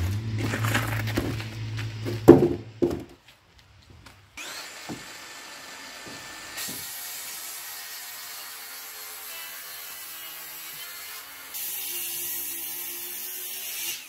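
For the first few seconds a low engine rumble with a few wooden knocks as boards are handled. Then, from about four seconds in, an electric hand planer runs steadily, shaving a larch board.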